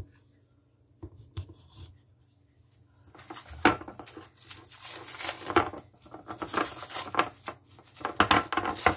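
Plastic cling film crinkling and rustling as it is pulled off a bowl of sourdough starter, after a few light knocks on the kitchen counter.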